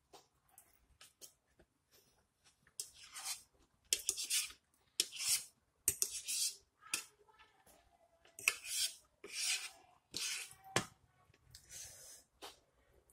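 Metal fork scraping and scooping across a plate in a string of short, irregular rasping strokes, with a faint squeak in between.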